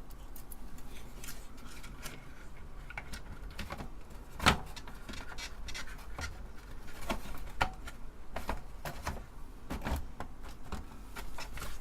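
Scattered light clicks, taps and rubbing of hands handling a circuit board and wiring inside a computer case bottom, with one louder knock about four and a half seconds in.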